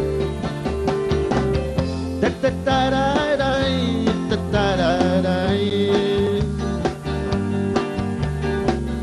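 A live rock band playing: electric guitars, bass guitar, a drum kit and keyboard, with a steady drum beat under the chords. In the middle a lead electric guitar line plays with bends in pitch.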